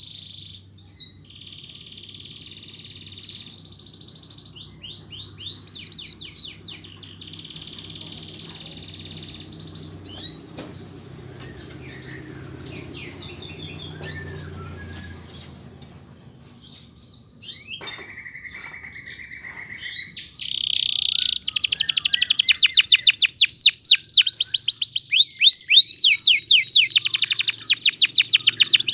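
Domestic canary singing: varied phrases of trills and sweeping whistled notes, then about two-thirds of the way in a loud, fast rolling trill of rapidly repeated notes that runs on to the end.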